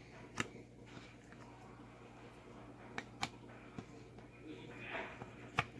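Light taps and clicks of cardboard jigsaw puzzle pieces being handled and tried in place on a puzzle board, about half a dozen sharp clicks, with a brief soft hiss near the end.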